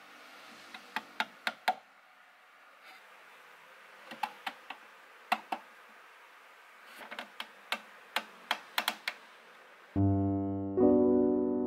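Light, sharp wooden clicks and taps as small Taiwan cypress strips are pushed into their slots and knocked against the cabinet's frame, in scattered groups of two to four. About ten seconds in, piano music starts and becomes the loudest sound.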